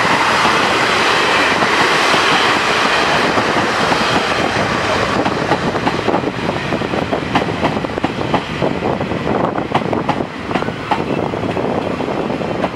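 Taiwan Railways Chu-Kuang express coaches rolling past, a loud, steady rumble of wheels on rail. In the second half it turns into a run of sharp clacks as the wheels cross the rail joints. The sound eases slightly near the end as the last cars go by.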